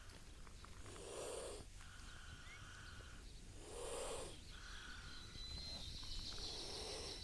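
A chameleon hissing in defence: three short, breathy hisses about three seconds apart.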